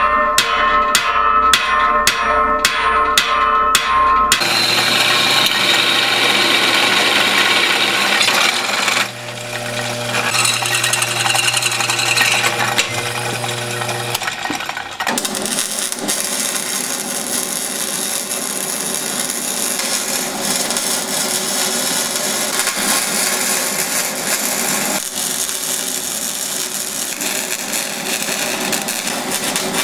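Metalworking in three stages. First, a hammer strikes steel on an anvil a couple of times a second, each blow ringing. Then a drill press motor hums steadily as it drills metal. About 15 seconds in, a MIG welder starts a steady crackle that runs to the end.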